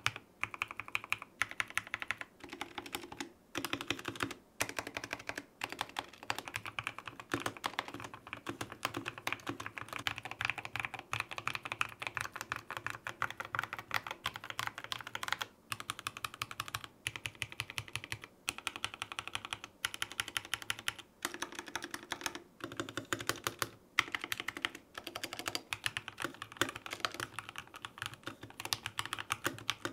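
Fast continuous typing on the Epomaker TH80 mechanical keyboard with factory-lubed Gateron Pro Black linear switches and thick PBT keycaps, then on the Epomaker TH66 with Gateron Pro Red switches: a rapid stream of key clacks with short pauses.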